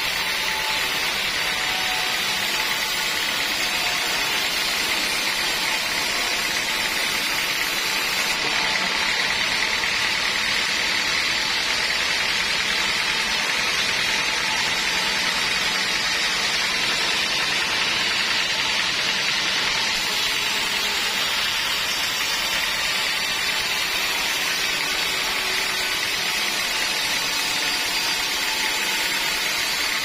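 Sawmill band saw running steadily, its blade cutting lengthwise through a teak log on the carriage: an even, unbroken noise.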